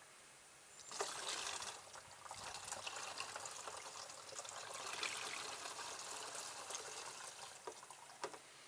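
Red antifreeze pouring in a thin trickle from a clear filter-housing bowl into a plastic funnel and bottle, starting about a second in. A light click near the end.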